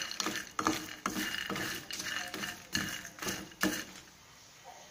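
Spatula stirring and scraping peanuts, garlic, dried coconut and dried red chillies dry-roasting in a pan without oil: irregular scrapes and rattles of the ingredients against the pan, stopping near the end.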